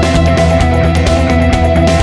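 Background music: rock track with guitar, bass and a steady drum beat.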